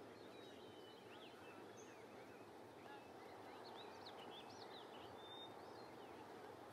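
Quiet outdoor ambience: a low steady hiss with scattered faint bird chirps and short whistles, busiest around the middle.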